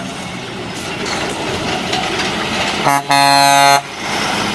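Vehicle running with a steady noisy rumble, cut through about three seconds in by a loud air horn: a short toot, then a longer blast of under a second.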